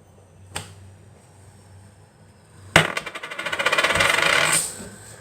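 A light click, then a sharp knock followed by about two seconds of rapid, evenly spaced clattering that grows louder and then stops abruptly, like a small spinning plastic toy rattling against something.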